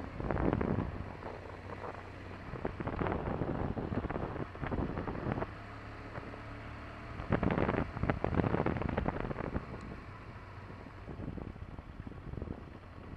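Wind buffeting the microphone of a moving motorcycle in uneven gusts, over the steady low run of the bike's engine. The noise eases near the end as the bike slows.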